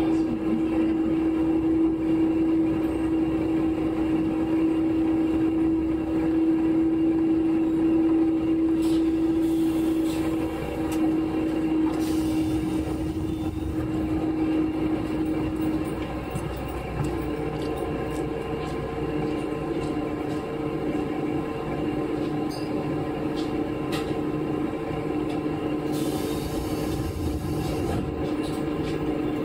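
KiHa 11 diesel railcar running, probably heard from on board: a steady engine and transmission whine that shifts pitch about halfway through, with a few light clicks.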